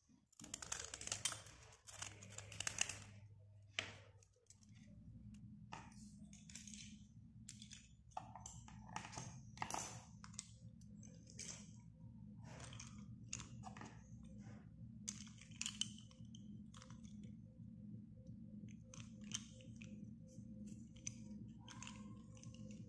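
Snap-off utility knife blade scraping slate pencils in short, dry, scratchy strokes, with small clicks as the pencils are handled. A steady low hum comes in about four seconds in.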